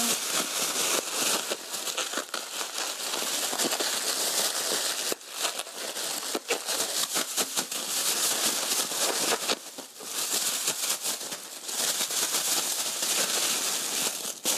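Clear plastic bag crinkling and rustling as zucchini slices are shaken inside it with flour to coat them. The crinkling is continuous and crackly, easing briefly about five and ten seconds in.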